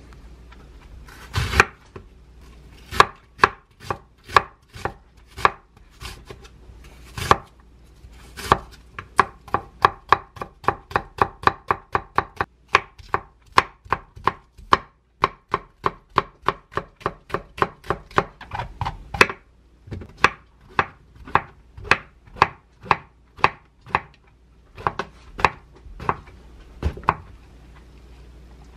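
Chef's knife cutting an onion and green onion on a wooden cutting board: a run of sharp knife strikes on the board. The strikes are spaced out at first, come quicker and closer together in the middle, and slow again near the end.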